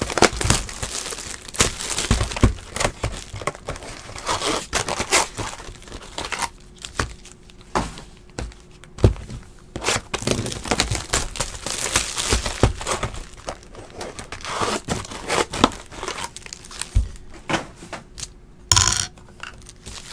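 Plastic shrink-wrap crinkling and tearing as sealed trading-card boxes are unwrapped. The foil packs and cardboard boxes are handled throughout, giving irregular rustles and sharp knocks.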